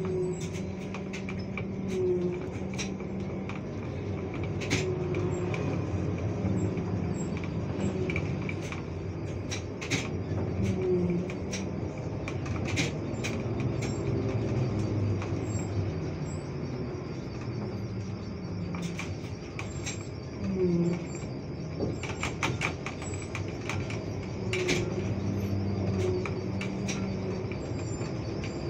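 Interior of a moving trolleybus: low hum and road noise, a steady high electric whine, and frequent sharp clicks and rattles from the body and fittings over the road.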